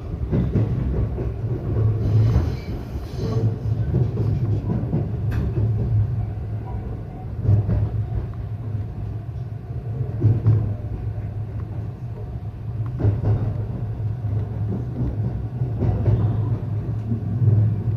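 Local electric train running at speed, heard from inside the carriage: a steady low rumble with occasional knocks from the wheels and track.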